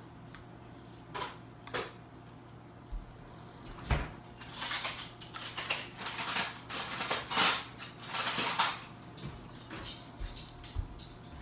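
A metal spoon scraping and tapping inside a small plastic cup. A few light clicks come first, then a run of quick scrapes for about five seconds in the middle, then a few more clicks.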